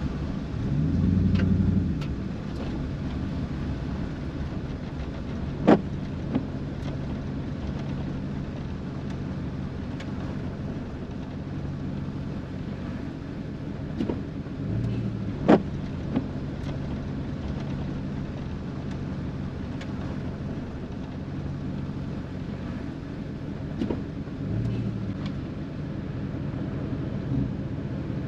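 A car engine running with a steady low hum. It swells briefly about a second in and twice more later, with a few sharp taps.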